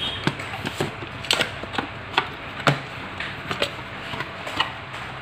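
Fingers picking at and peeling seal stickers on a cardboard camera box, then lifting the box's flaps open: a run of irregular small clicks and taps.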